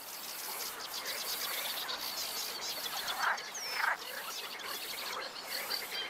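Great reed warbler nestlings begging at the nest: a fast, high-pitched chittering, with two louder, harsher notes about three and four seconds in.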